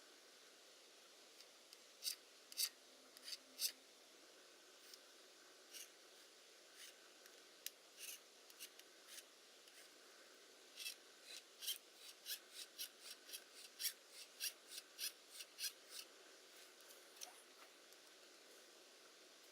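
A series of short, sharp clicks and scrapes from hand work on a small mechanical part, scattered at first and then coming two or three a second in the latter half.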